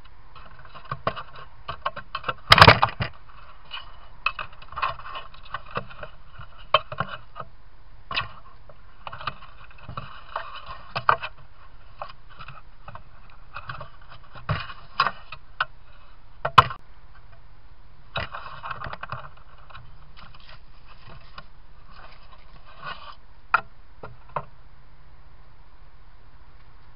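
Grey foxes scuffling and scratching out of sight under a shed: irregular scrapes and sharp clicks, the loudest cluster about two and a half seconds in, dying away a few seconds before the end, over the steady hiss of the trail camera's microphone.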